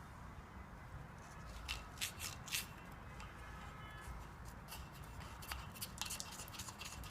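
Faint handling noises: scattered light clicks and scrapes of hands working parts and materials, a cluster about two seconds in and more near the end, over a low steady rumble.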